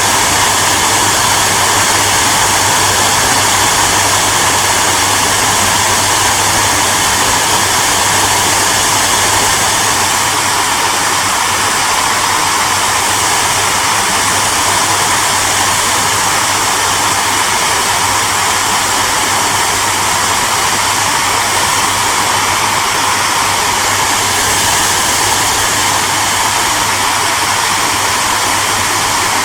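Hairdryer running continuously, a steady whooshing hiss of blown air with a low motor hum underneath.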